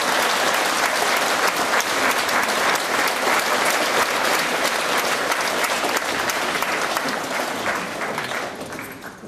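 Audience applauding steadily, a dense patter of many hands clapping that fades away over the last second or so.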